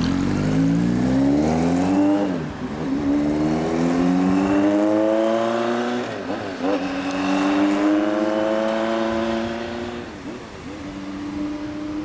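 Kawasaki Z1 900 Super Four's inline-four through a BEET four-into-one exhaust, pulling away and accelerating. The engine note climbs in each gear and drops at three upshifts, about two, six and ten seconds in, then fades as the bike rides off.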